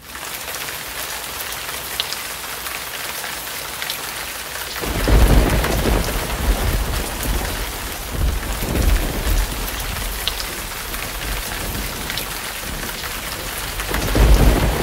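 Steady rain with rolling thunder. A low rumble comes in about five seconds in and swells again near the end.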